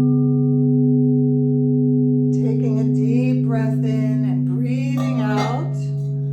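Singing bowl ringing on with several steady overlapping tones. About two and a half seconds in, a wordless sung voice tones over it for about three seconds, its pitch bending up and down.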